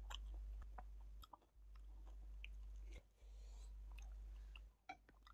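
Close-up chewing and wet mouth clicks from a man eating rice and meat by hand, faint, over a low hum that cuts out and comes back several times.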